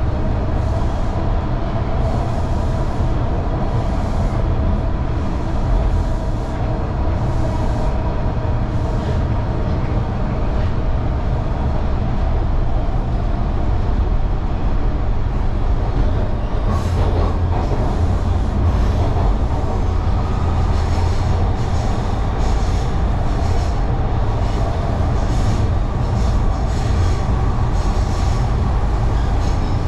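TTC Line 2 Bloor-Danforth subway train running between stations, heard from inside the car: a steady, loud low rumble of wheels on the track, with a faint whine and a few brief clicks in the second half.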